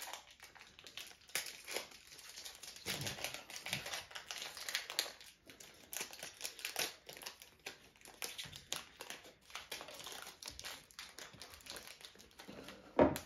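Foil trading-card pack wrapper crinkling and tearing open, with cards being handled and flicked against each other: a busy run of small crackles and clicks. A sharper tap comes near the end.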